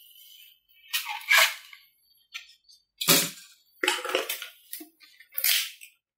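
Handling noise from a large RC model jet airframe being turned over and set down on a workbench: a few separate sharp knocks and short scraping rustles, the loudest about three seconds in.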